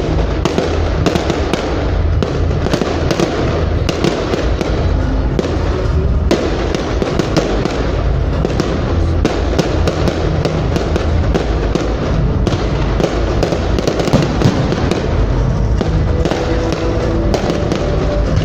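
Fireworks display: a continuous dense run of bangs and crackles from bursting shells, with the show's music playing underneath.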